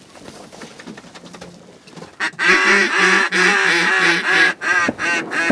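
Loud series of mallard-style hen quacks, about a half-dozen in a row starting some two seconds in, then a few shorter ones near the end.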